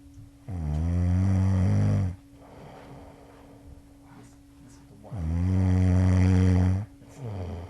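A sleeping person snoring loudly: two long, low pitched snores about four seconds apart, with a shorter one starting near the end.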